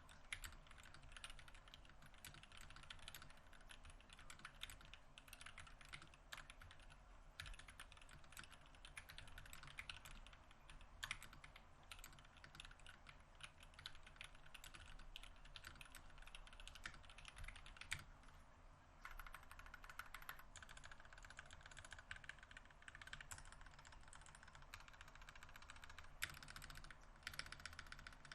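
Continuous typing on an NK65 Awaken Edition mechanical keyboard with NK_ Silk Yellow linear switches, a polycarbonate case and plate, and GMK Cherry-profile double-shot ABS keycaps. A few single keystrokes stand out louder than the rest.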